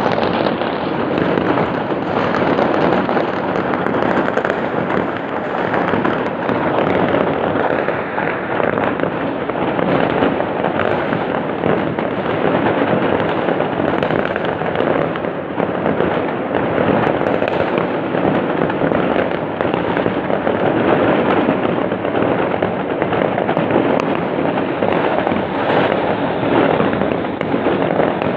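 Fireworks going off in a dense, unbroken barrage of bangs and crackles with no pauses, recorded on an old phone whose microphone cuts off the high end.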